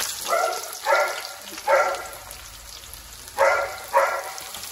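A dog barks five times, three barks in the first two seconds and two more near the end. Beneath the barks, sliced onions sizzle steadily in hot mustard oil in a kadai.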